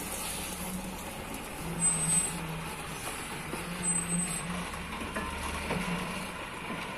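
Diesel engine of an Isuzu FVR lorry running steadily, with a couple of slightly louder moments about two and four seconds in.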